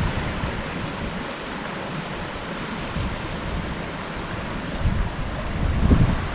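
River water flowing over rocks, a steady hiss, with wind buffeting the microphone in low gusts near the end.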